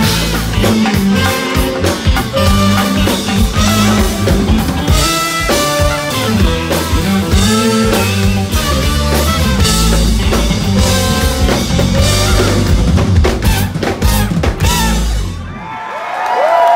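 Live brass-led funk band, with trumpet over a driving drum kit, playing loud and then stopping abruptly near the end, where the crowd breaks into cheering and whoops.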